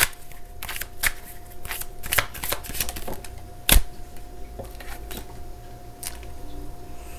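Tarot cards being shuffled and handled, a run of short, soft clicks and flicks from the deck, with one sharper snap a little under four seconds in as a card is pulled and laid down.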